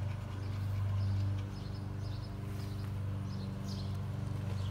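A steady low machine hum, with faint high bird chirps several times in the second half.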